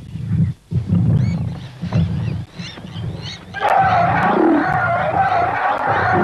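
Young lions growling in low, pulsing bursts as they attack an elephant calf. A little past halfway through, a loud, high, sustained distress cry, most likely the calf's scream, takes over until the end.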